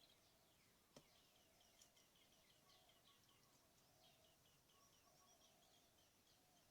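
Very faint outdoor ambience with birds chirping in quick runs of short high notes. A single sharp click sounds about a second in.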